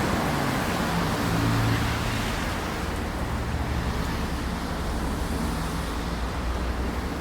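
A vehicle engine running with a low hum under steady road-like noise, easing off slightly about two and a half seconds in.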